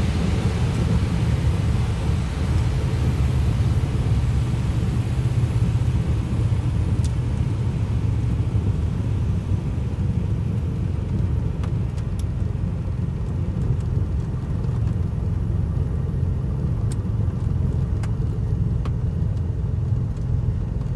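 Cabin noise of a Cessna 310 in its landing rollout: a steady low rumble from the twin piston engines at idle and the wheels on the runway, with the rushing air noise dying away over the first several seconds as the plane slows. A few faint ticks come in the second half.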